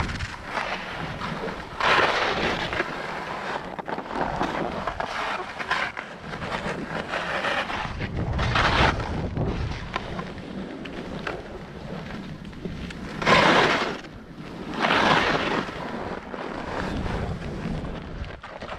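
Skis scraping and carving on snow during a run, rising in four louder swells of scrape as the skier turns, over wind buffeting the microphone.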